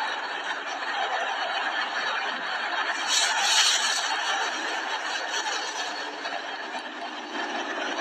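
People laughing over steady background noise, a little louder about three seconds in.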